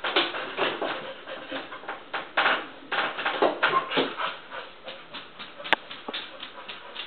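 A wheaten terrier puppy rummaging at a stainless steel kitchen trash can: irregular scuffling, rustling and knocks against the can and its swinging lid, then a sharp click as the lid drops shut near the end.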